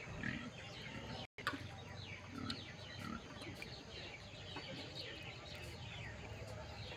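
Birds chirping repeatedly in short, falling calls over quiet rural background sound, with a brief dropout about a second in.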